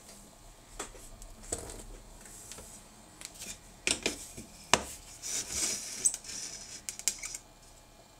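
Handling noises as a wooden board and a plastic dental model are set down and shifted on a hard work surface: a few sharp knocks and clatters, the loudest near the middle, with a brief scraping slide just after.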